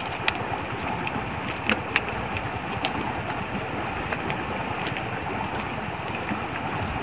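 Steady rushing outdoor noise, with a few faint short clicks scattered through it.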